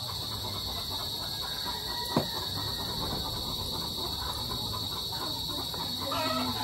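Steady high-pitched drone of insects in the surrounding trees, holding one constant pitch, with a single sharp click about two seconds in.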